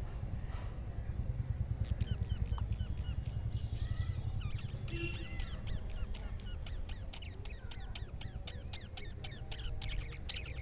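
A flock of budgerigars chattering: many rapid short chirps and warbles overlapping, becoming dense about two seconds in. A steady low rumble runs under them, stronger in the first half.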